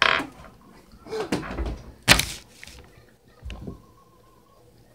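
Knocks and rustles of a hand handling the recording device close to the microphone. There is a sharp noise at the start, rustling about a second in, a loud sharp knock about two seconds in, and a softer bump later.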